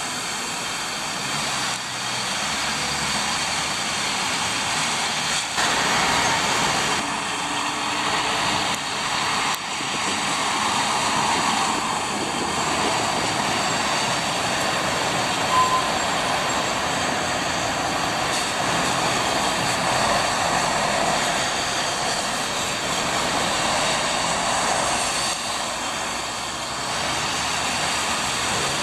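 Street traffic on a wet road: trucks and cars passing, heard as a steady rush of tyres and engines. A brief beep comes about halfway through.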